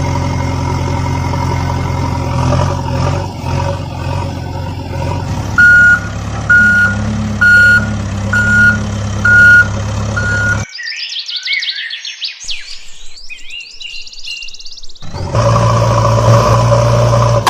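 A heavy vehicle engine runs steadily, and a reversing alarm beeps six times at an even pace, about one beep a second, starting about halfway through. The engine cuts off suddenly. A few seconds of high-pitched chirping follow, and then the engine sound comes back near the end.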